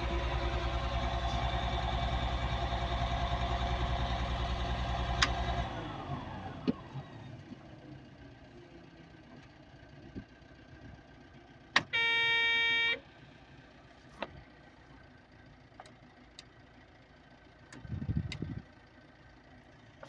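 Caterpillar 950H wheel loader's diesel engine running, misfiring because its number two injector is not firing, then shut off about five and a half seconds in and running down to a stop. About twelve seconds in, a single one-second electronic beep.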